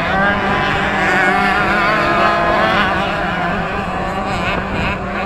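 Several 65cc two-stroke motocross bikes racing, their engines revving up and down with constantly shifting pitch; the sound eases slightly in the second half.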